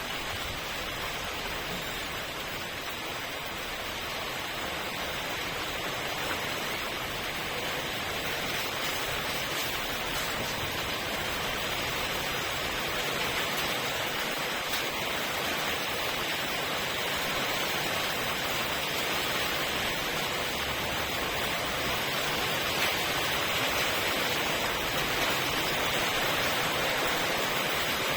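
Steady rain falling, a dense, even hiss of drops that grows slowly louder.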